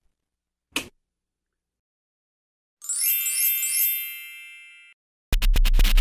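Outro jingle. A short click comes first, then a bright electronic chime rings and fades, and near the end a loud, fast electronic beat with deep bass kicks in.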